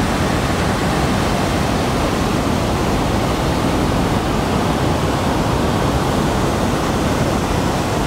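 A large waterfall in heavy flow, a great volume of water pouring over a stone weir into the river below, heard close up as a loud, steady rush.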